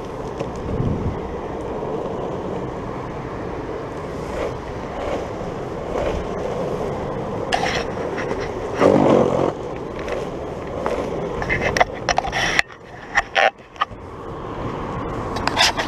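Longboard wheels rolling over asphalt: a steady rumble with scattered clicks and knocks. Near the end the rumble drops away for about a second, broken by a few sharp knocks, then builds again.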